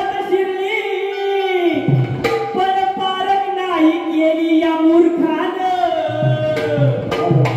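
Marathi Shakti folk singing: a singer draws out long, wavering notes over instrumental accompaniment, with low drum strokes coming in about two seconds in and again near the end.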